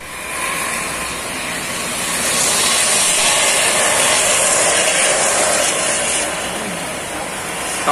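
Heavy rain hissing down on a wet highway as a bus passes through the spray, the noise of its tyres and exhaust swelling a couple of seconds in and easing off after about six seconds.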